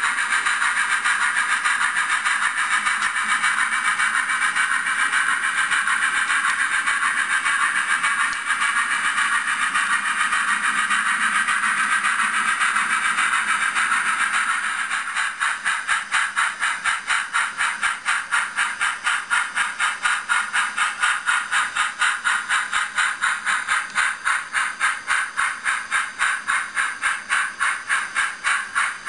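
Sound of an H0n3 model steam train running. First a steady hiss, then from about halfway an even, rhythmic pulsing of about three beats a second.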